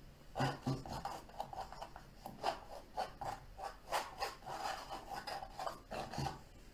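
Palette knife scraping and dabbing oil paint onto a stretched canvas: a quick series of short rasping strokes, several a second, stopping shortly before the end.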